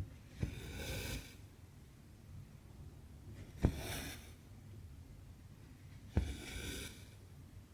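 Cotton embroidery thread being stitched through Aida cross-stitch fabric, three times: each time a sharp click of the needle piercing the cloth, then a hiss of thread pulled through lasting under a second.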